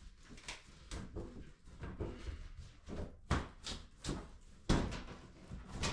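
Cheap bathroom vanity cabinet being ripped apart by hand: a run of wooden knocks and bangs, the loudest two a little past three seconds in and near five seconds.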